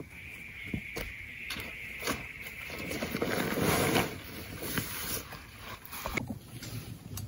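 Plastic tarp rustling and crinkling as it is unfolded and spread out, with scattered small ticks, loudest about halfway through. A steady high-pitched buzz runs beneath it and stops suddenly about six seconds in.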